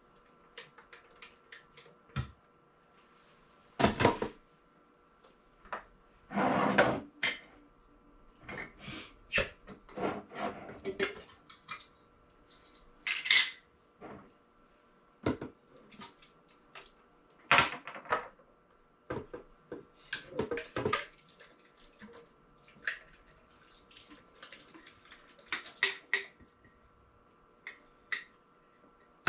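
Kitchenware being handled: scattered clinks and knocks of glass jars, a bowl and a blender jug, with a brief rushing, scraping sound about six seconds in.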